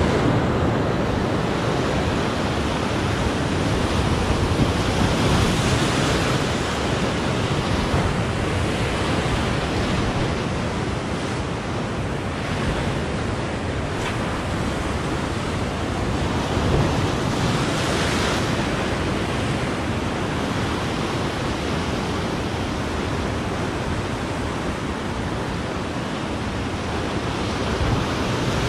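Sea surf breaking and washing over rocks in a continuous rushing wash, with a couple of louder breaks about six and eighteen seconds in.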